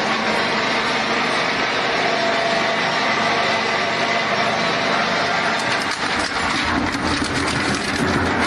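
Scrap-metal shredder running under load, its toothed cutters grinding and crunching the last fragments of a crushed car engine over a steady machine drone.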